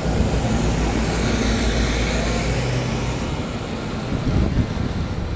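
Street traffic with a double-decker bus's diesel engine running close by. Its steady low drone fades about three seconds in, leaving the general traffic hum.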